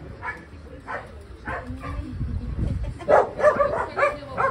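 Puppies giving short, high-pitched calls. The calls are spread out at first and come quickly one after another near the end.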